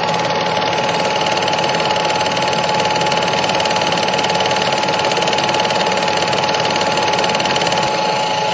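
A small machine running steadily with a fast, even clatter and a constant high hum.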